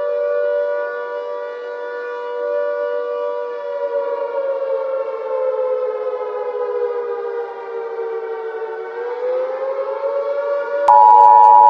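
Civil defence air-raid siren wailing, its pitch sliding slowly down and then back up. Near the end a click cuts in and a louder, steady two-tone alert signal of the Emergency Alert System kind begins.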